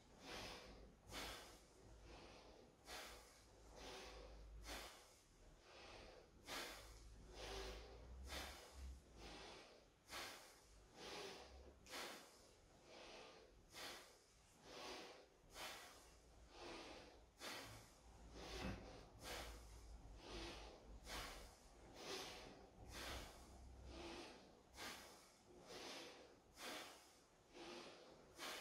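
Wooden practice sword (bokken) swishing through the air in short airy whooshes, a little more than one a second, as it is raised and cut down over and over.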